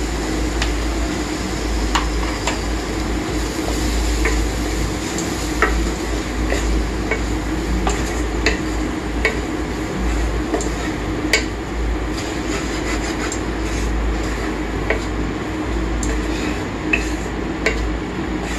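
A wooden spatula stirring and scraping spice-coated vegetables around a kadai, with irregular knocks and clicks of the spatula against the pan over a steady low hum.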